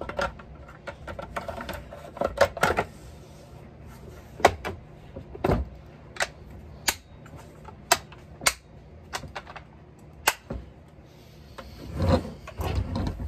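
Hard plastic clicks and knocks as the top cover of a Husqvarna 572 XP chainsaw is fitted over the engine and pressed home, a dozen or so irregular sharp clicks with handling noise between. A louder cluster of knocks comes near the end.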